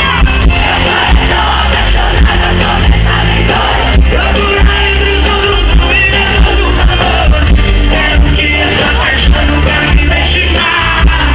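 Sertanejo band playing loud live: a male lead singer over accordion, drums and a heavy, steady bass beat, with the crowd yelling along.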